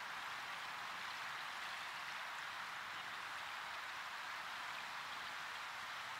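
Soft, steady hiss of small waves rippling across open water.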